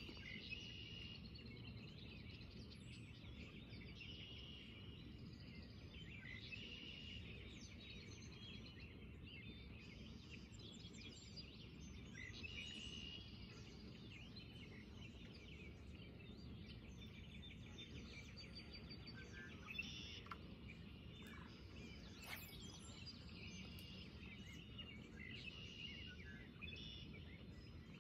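Faint birds chirping and singing in short repeated phrases over a low, steady background hiss and rumble, with a couple of soft clicks about two-thirds of the way through.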